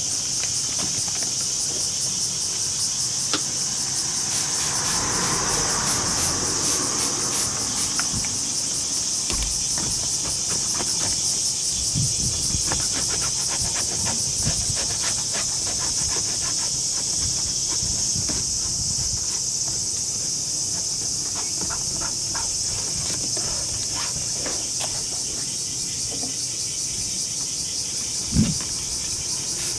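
Steady high-pitched drone of insects singing in the background, with scattered light clicks and knocks of handwork and a single thump near the end.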